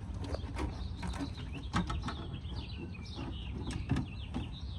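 Small birds chirping repeatedly, with a few sharp clicks and taps from a locksmith's tools working at a wedged car door, over a steady low hum.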